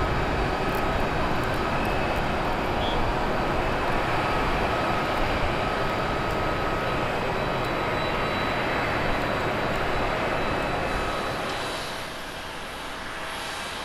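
Jet engines of a twin-engine Boeing 777 at takeoff thrust climbing out after departure: a steady, loud roar with faint whining tones above it. About twelve seconds in, the roar gives way suddenly to a quieter, more distant jet engine sound.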